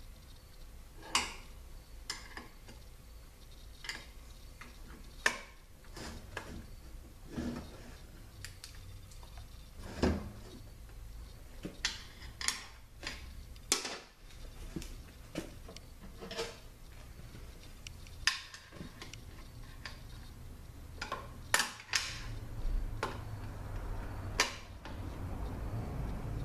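Irregular sharp metallic clicks, taps and scrapes of a pick working a steel snap ring out of its groove inside a Toyota A340 transmission case, some clicks much louder than others.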